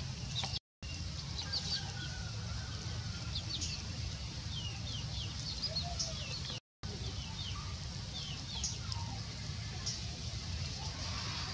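Birds chirping again and again in short, high, falling chirps over a steady low hum. The sound cuts out completely twice, briefly, once near the start and once about halfway through.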